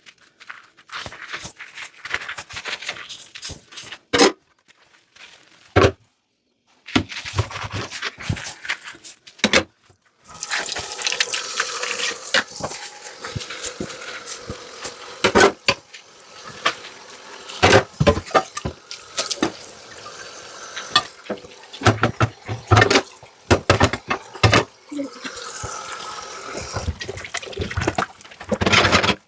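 Dishes clinking and clattering as they are handled in a sink. About a third of the way in, a tap starts running water steadily into the sink, with more knocks and clinks of dishware through it.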